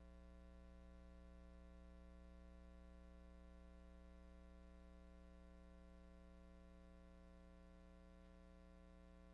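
Near silence with a faint steady hum that does not change.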